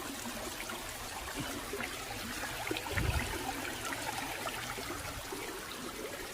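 Water trickling and running steadily, with scattered small clicks of stones being handled and one dull thump about three seconds in.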